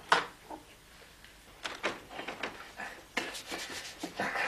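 Household handling noises: a sharp knock just after the start, then a scattering of lighter knocks and rubbing, like wooden things being moved about.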